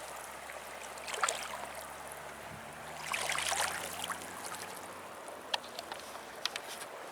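Water splashing and sloshing in two short bursts, about a second in and again around three seconds in, with a few light clicks later on.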